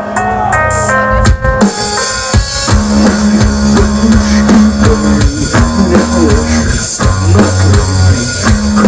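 Instrumental break of a rock song: a line of short melodic notes, then about one and a half seconds in the full band comes in with drum kit, bass and guitar.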